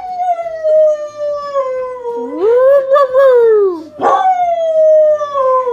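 Dog howling. One long howl slides down in pitch, swells and falls again, then a second howl starts sharply about four seconds in and slides downward.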